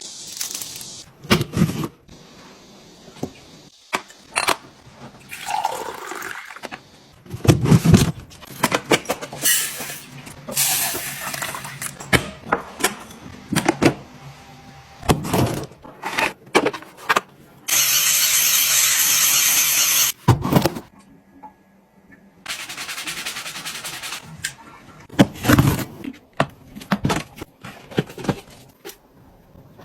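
Objects being handled: a string of sharp clicks, knocks and rubbing sounds, with two steady hisses of about two seconds each a little past halfway, the first the louder.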